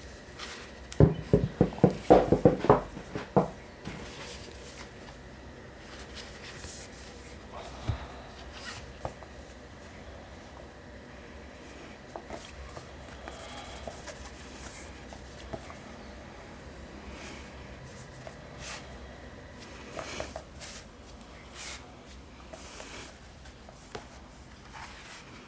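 Paperback manga volumes and their packaging being handled. About a second in there is a quick run of sharp knocks and clatter lasting a couple of seconds, then occasional soft rustles and light clicks.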